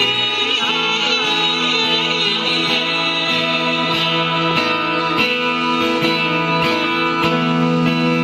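Background music: an instrumental passage with plucked guitar.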